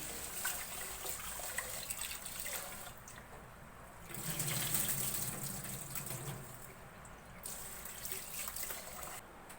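Water running from a tap into a sink in three spells, stopping briefly about three seconds in and again near seven seconds.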